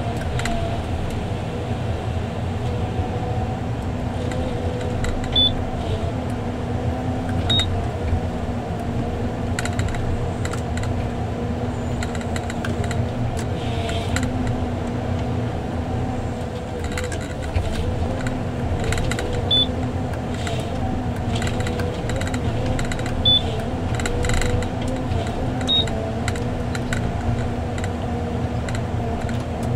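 John Deere 1170G harvester heard from inside its cab, its diesel engine and hydraulics running steadily while the harvester head works a felled spruce, with scattered knocks. Five short high beeps from the machine's on-board computer sound over the drone.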